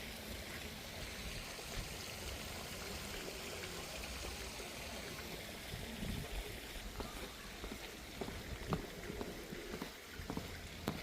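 Garden fountain water splashing steadily, an even hiss of falling water, with a few sharp clicks in the last few seconds.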